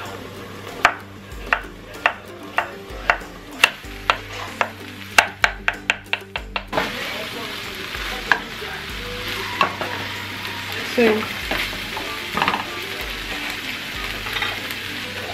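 Knife chopping zucchini on a wooden cutting board: about sixteen sharp knocks, quickening near their end before stopping abruptly. After that, chopped zucchini sizzling in a frying pan with ground chicken as it is stirred with a spatula.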